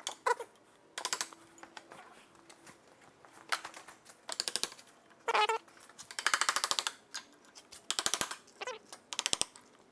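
Short bursts of rapid clicking, several times over, from hand tools working a broken U-joint out of a driveshaft.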